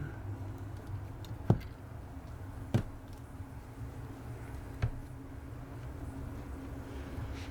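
Three sharp clicks, a second or two apart, from the laptop's parts and tools being handled during screen removal, over a steady low hum.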